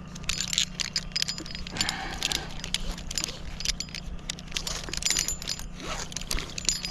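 Light metallic clinking and jangling of climbing and rigging hardware, with rope and branch rustling, as a limb is tied in for lowering. The clinks are irregular.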